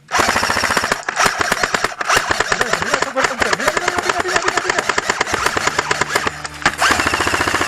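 Airsoft guns firing rapid full-auto bursts, a fast mechanical rattle of shots that starts abruptly and keeps going, with a brief break near the end.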